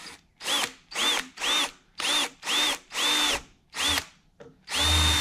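Ryobi drill run in short trigger bursts, about eight in all with the last held longer, while drilling into the idle air control valve body to expose a hidden roll pin. Each burst has a motor whine that rises and falls.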